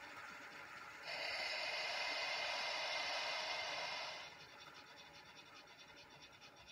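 QSI Titan sound decoder in a brass PRR E6s steam locomotive model playing steam hiss through its small speaker. The hiss grows much louder about a second in and falls back to a softer hiss at about four seconds.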